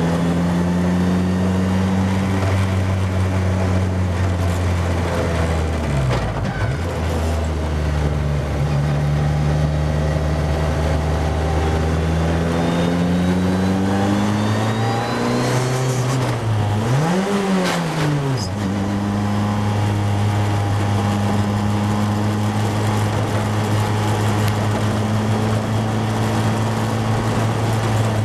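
Formula Ford single-seater engine running hard, heard from on board the car at speed. Its pitch drops sharply about six seconds in and climbs steadily for several seconds, then briefly rises and falls around seventeen seconds in before holding a steady note.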